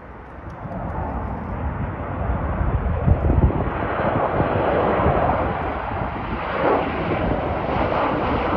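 Jet engines of an Air Canada Boeing airliner on landing approach, wheels down: a steady rushing engine noise that grows louder over the first few seconds as the plane draws nearer, then holds.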